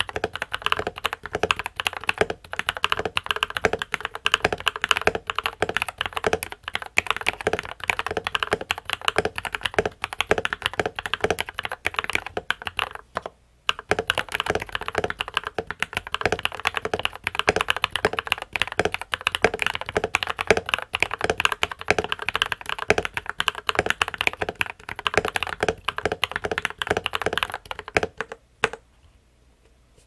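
TM680 mechanical keyboard with factory-lubed Gateron Milky Yellow Pro linear switches on a steel plate, with PE foam, case foam and the tempest mod, being typed on fast and continuously. The typing breaks off briefly a little past halfway and stops about a second and a half before the end.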